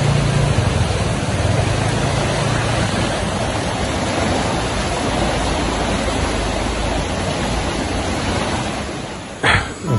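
Swollen, muddy river rushing steadily below the bridge, its flow raised by heavy rain upstream. A motorbike engine hums in the first few seconds and fades away.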